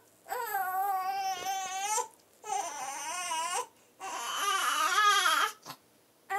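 Baby whinging: three drawn-out, wavering fussy cries in a row, the third the loudest, then a brief one near the end.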